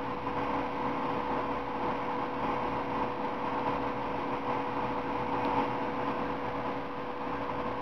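Steady mechanical hum of a motor-driven appliance running, an even whir with one constant tone and no change.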